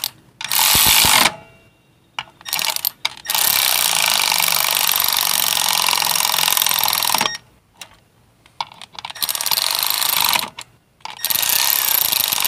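Cordless electric ratchet whirring as it runs clutch spring bolts in. It goes in bursts: two short runs near the start, one long run of about four seconds, then several short runs near the end as it moves from bolt to bolt.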